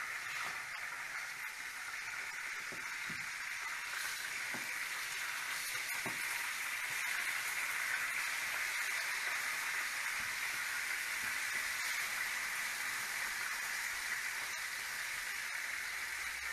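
Marinated chicken frying in hot oil in a pan, a steady even sizzle, with a few light clicks in the first few seconds.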